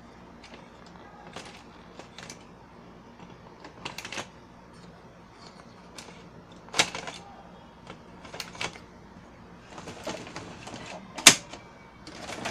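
Plastic clicks and knocks of HP toner cartridges being handled and taken out of the printer's cartridge drawer. The sounds are scattered irregularly, with two sharper, louder clacks about seven seconds in and near the end.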